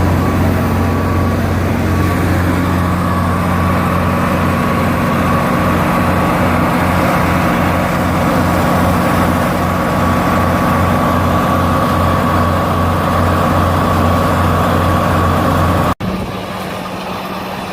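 Large engine running steadily at a constant speed, with a steady high whine above it. About sixteen seconds in the sound cuts off abruptly and resumes as a quieter, similar engine sound.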